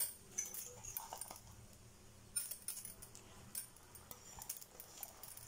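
Several light metallic clinks and scrapes of a steel spoon against a utensil as ground masala paste is spooned out and dropped into the gravy.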